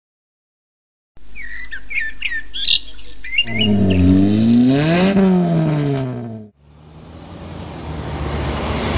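Birds chirping, then a car driving past, its engine pitch rising and then falling about five seconds in. A heavier engine with tyre noise follows, growing louder near the end as a lorry approaches.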